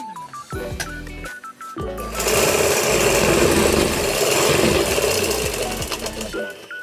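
Manual sewing machine running for about four seconds, starting about two seconds in and stopping near the end. A stepped melody plays before it starts.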